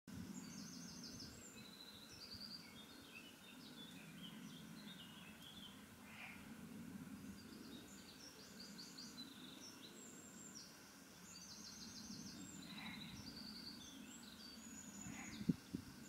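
Faint songbird chorus: many short high chirps and quick trills from several small birds, over a low steady background hum. A sharp knock sounds twice near the end.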